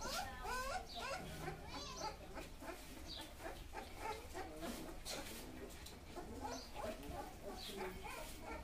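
Young Mudhol Hound puppies squeaking and whimpering while they nurse: a string of short, wavering high cries, with faint clicks.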